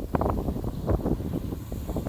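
Wind buffeting the microphone in gusts, with low rumble underneath.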